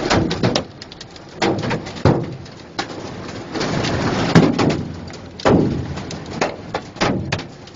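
Hailstones striking a car's roof and cracked windshield, heard from inside the cabin: a run of irregular sharp knocks over a steady patter.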